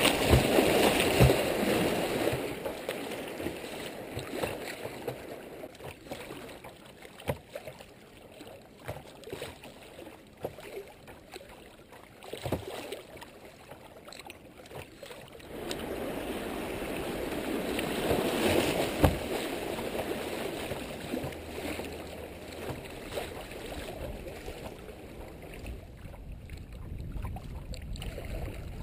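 Creek water rushing and splashing around a kayak through a shallow riffle, heard close at the waterline, with water slapping against the low bow-mounted camera at the start. It eases to a lower rush with scattered small splashes, then swells again for a few seconds past the middle as the kayak runs more choppy water.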